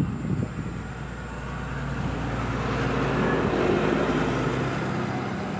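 A motor vehicle passing by on the road, its engine and tyre noise swelling to a peak about three to four seconds in, then fading.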